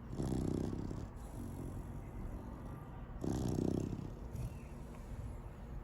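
A seven-month-old Labrador Retriever puppy snoring in its sleep: two loud snores, each about a second long and about three seconds apart, with quieter breathing between.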